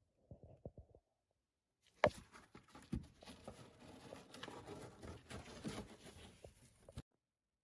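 Cardboard rustling and scraping with scattered knocks as a cat moves about inside a box. A few faint taps come in the first second, then a sharp knock about two seconds in starts the rustling, which stops abruptly near the end.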